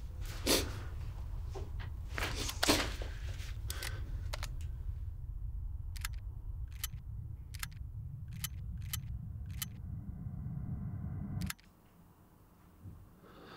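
Revolver being checked by hand, its mechanism giving a series of sharp, evenly spaced clicks, about one every three quarters of a second, as the cylinder is turned. A low drone runs underneath and cuts off suddenly near the end.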